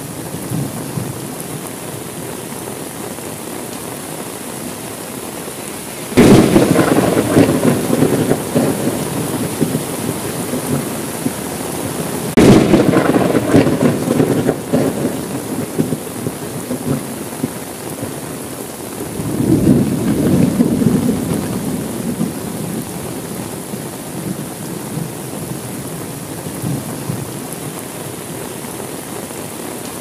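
Steady rain with thunder: sudden sharp thunderclaps about six and twelve seconds in, each rumbling on for a few seconds, and a softer rolling rumble that swells about nineteen seconds in.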